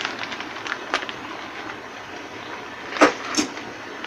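Steady hiss of a pot of water heating on the stove with eggs in it. A few short clicks and knocks, the loudest two close together about three seconds in, as a bundle of dry spaghetti is put into the pot.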